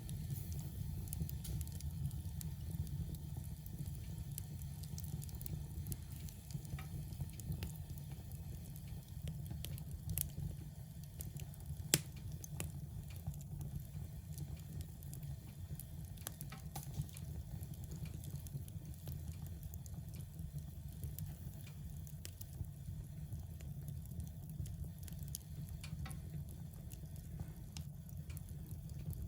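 Fire burning in a fireplace: a steady low rumble of the flames with scattered crackles, and a sharp pop about twelve seconds in.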